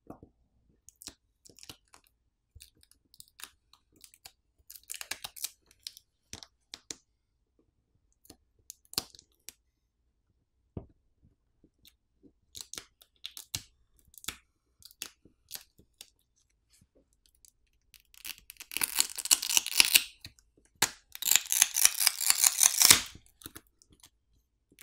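Adhesive under a smartphone battery crackling and tearing as the battery's pull pouch is peeled off the frame. Scattered small crackles and ticks come first, then two longer tearing stretches near the end.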